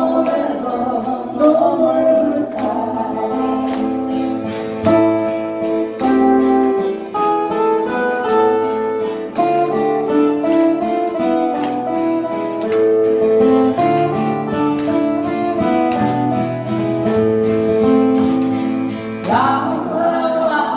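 Live acoustic-guitar band music: several steel-string acoustic guitars strumming chords, with a smooth melody of held notes carried over them.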